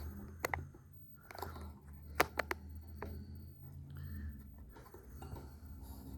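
Handling noise from a camera being repositioned: a few sharp clicks and light knocks, the loudest about two seconds in, over a faint low hum.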